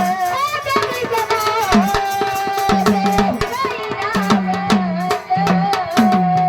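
Live devotional music: a hand drum plays resonant bass strokes that bend in pitch, under dense fast percussion clicks and a held, ornamented melody line.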